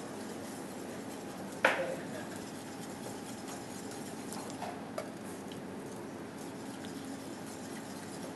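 Wire whisk stirring butter into a stainless steel pan of hot stock, mounting the butter for a beurre blanc base. One sharp metal clank with a short ring comes about a second and a half in, then two lighter taps around five seconds, over a steady low hum.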